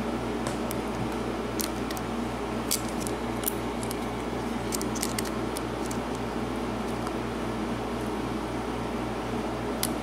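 Faint, scattered metallic clicks and scrapes of a lock pick and tension wrench working the pin stack in the keyway of a pin-tumbler padlock, over a steady electrical hum.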